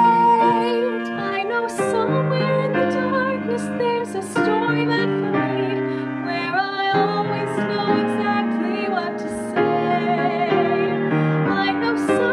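Music: a woman's singing voice holding long notes over piano accompaniment.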